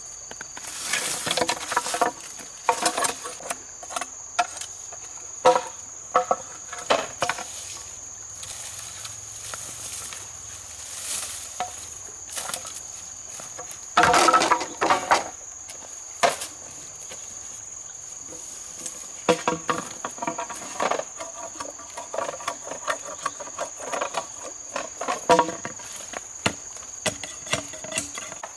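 Insects trilling steadily at one high pitch, over a run of irregular sharp knocks and clacks, like things being handled or struck around a camp. The knocks are loudest in a burst about halfway through.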